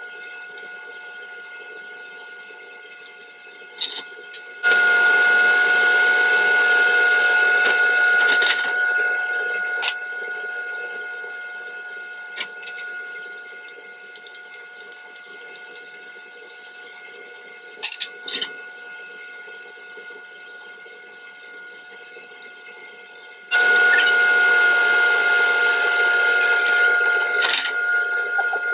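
Scallops sizzling in a hot skillet: the sizzle jumps up loud about five seconds in and eases off over several seconds, then surges loud again near the end, with scattered clicks of a utensil against the pan. A steady high whine runs underneath.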